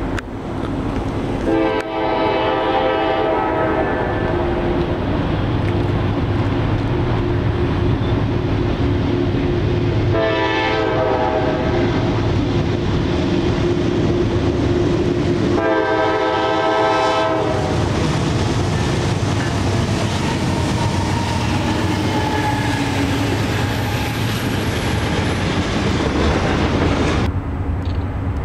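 Locomotive horn sounding three times: long, short, then long again. Under it is the steady running rumble of a passing train.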